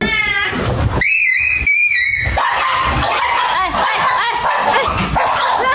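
Cat screeching: loud, high-pitched wavering cries that glide in pitch, giving way about two seconds in to a denser, noisier run of cries.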